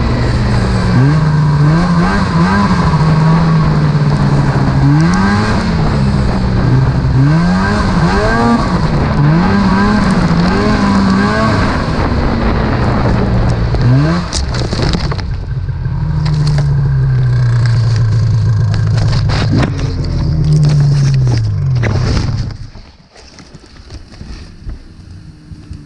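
Snowmobile engine revving up and down over and over as the sled runs along the trail, with knocks and scrapes about 14 seconds in. The engine then winds down and cuts off suddenly near the end as the sled crashes into the trees, leaving faint rustling of branches.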